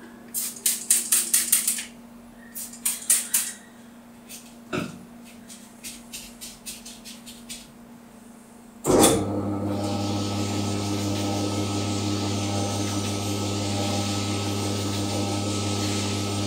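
Rapid clicking in short bursts and a single knock as the bowling ball is set on the spinner. About nine seconds in, the ball spinner's motor starts and runs steadily with an even hum, under a steady hiss of the tan Scotch-Brite pad sanding the spinning ball's surface.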